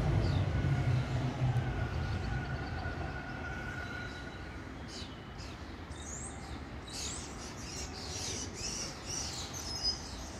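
A train's low rumble on the bridge overhead fading away over the first few seconds, then birds chirping and singing in short high phrases.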